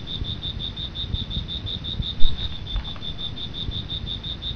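An insect chirps in a steady, evenly pulsed high trill, about eight pulses a second, over a low rumble. A single loud thump comes about two seconds in.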